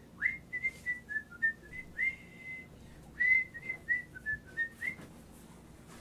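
A tune whistled in two short phrases of quick notes, each note sliding up into a clear held pitch, with a brief pause between the phrases.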